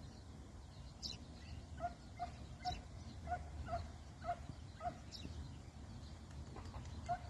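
Birds calling: a run of about seven short, evenly spaced mid-pitched notes, roughly two or three a second, with a few quick high chirps from another bird, over a low rumble.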